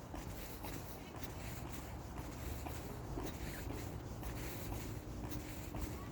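Footsteps and shuffling while walking, with faint scattered clicks; a faint steady hum comes in about halfway through.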